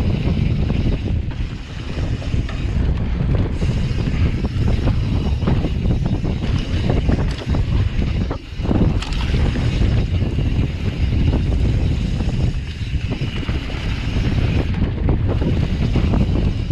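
Mountain bike ride noise on a POV camera: wind buffeting the microphone, with the crunch of tyres on a dry dirt trail and rattles and knocks from the bike over bumps. A short lull and a hard knock come about eight seconds in.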